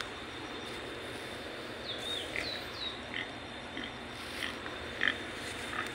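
Several short, high chirping animal calls scattered irregularly, a few of them falling in pitch, over a steady background hiss.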